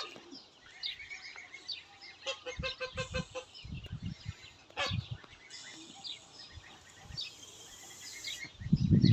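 Young geese peeping in short high calls, with one quick run of repeated calls about a third of the way in. A few low knocks and scuffs come in between.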